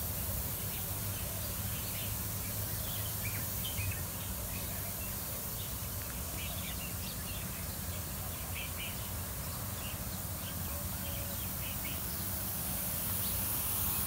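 Pop-up lawn sprinklers spraying with a steady hiss that grows a little louder near the end, while small birds chirp in short calls throughout. A steady low hum sits underneath.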